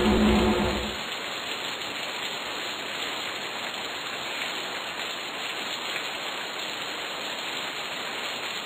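Steady rain-like hiss, with a louder low rumble in the first second that dies away.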